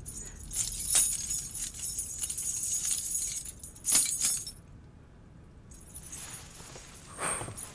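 Heavy metal chain being handled, its links rattling and clinking, with sharper clanks about a second in and again near four seconds, then dying down.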